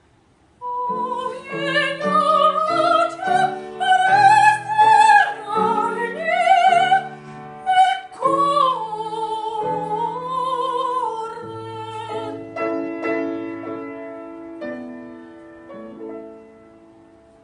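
Soprano singing a classical art song with vibrato over piano accompaniment, starting about half a second in. About eleven seconds in the voice stops and the piano plays on alone, fading away.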